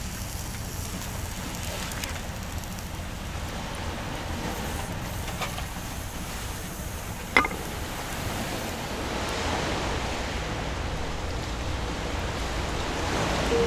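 Steady wind and surf noise at the shore, with one sharp snap about halfway through.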